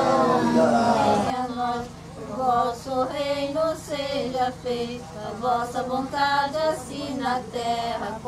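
Small group of voices singing a prayer a cappella, with women's voices leading. A held chord ends about a second in, and the singing then goes on in short phrases with brief breaks.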